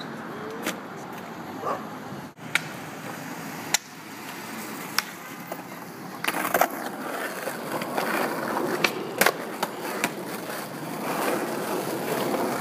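Skateboard wheels rolling on street asphalt, a steady rumbling noise that grows louder about six seconds in, with sharp clacks every second or so.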